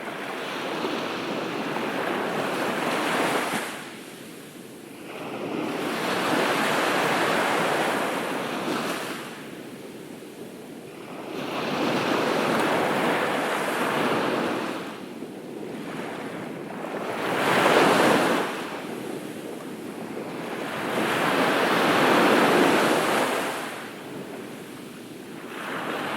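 Surf on a beach: waves breaking and washing up the shore in about five slow surges, each rising and falling over four to five seconds, the strongest about two-thirds of the way in.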